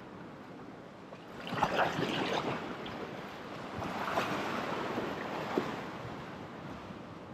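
Ocean swell washing against a coastal rock ledge, surging twice: about a second and a half in and again around four seconds in.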